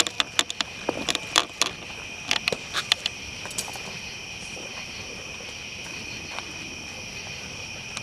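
Night insects chirring steadily, with a burst of sharp cracks and pops from the burning fire in the first three seconds or so.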